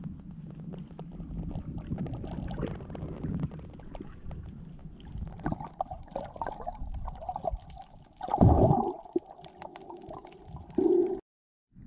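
Muffled underwater sound as picked up by a camera held underwater: a steady low rumbling and gurgling of water with many small clicks. There is a loud burst a little past eight seconds and a shorter one near the end, and then the sound cuts off suddenly.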